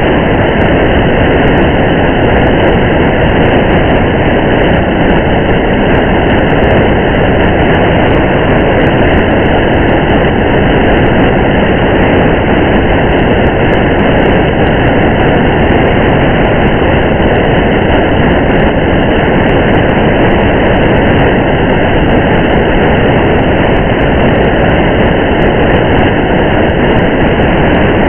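A car driving in steady rain, heard as an unbroken, even rush of tyre and road noise and rain on the car, with faint scattered ticks throughout.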